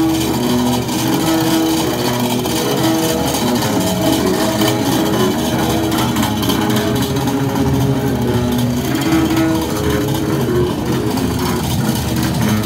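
Street music played in a crowded open square: held melodic notes that change pitch every second or so, over a steady loud din of the crowd and passing traffic.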